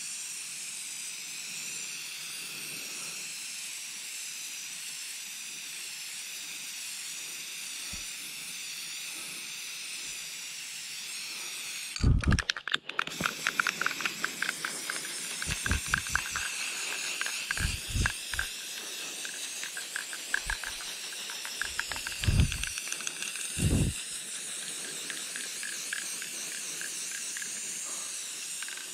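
Aerosol spray-paint can hissing steadily as paint is sprayed onto a tree trunk. In the middle it is broken by a run of rapid clicks and several dull bumps, the loudest about twelve seconds in.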